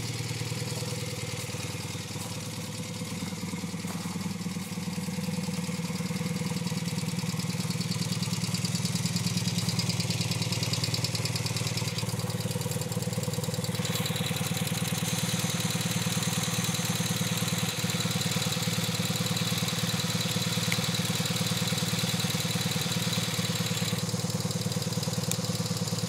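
A 1975 BMW R75/6's air-cooled flat-twin boxer engine idling steadily, a little louder from about five seconds in.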